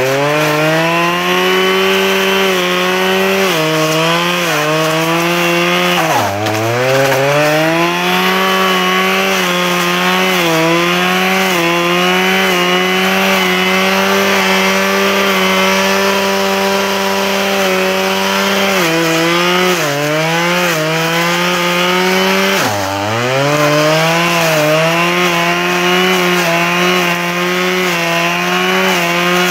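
Small handheld two-stroke engine held at full throttle while cutting, its pitch dipping and recovering about four times, twice sharply, as it is loaded by the cut.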